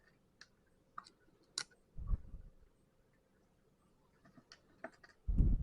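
Plastic Lego pieces clicking and clattering as they are picked through and handled. There is a dull thump about two seconds in and a louder one near the end.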